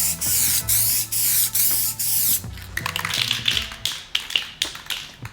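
Aerosol spray paint can sprayed in short repeated hissing bursts, stopping about two and a half seconds in, followed by a few light clicks and taps. Background music plays underneath.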